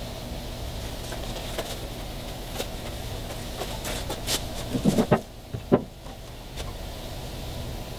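Light scrubbing and scraping of steel wool on the boat's rub rail, then a few dull knocks about five seconds in as the acetone can is set down on the fiberglass bow deck.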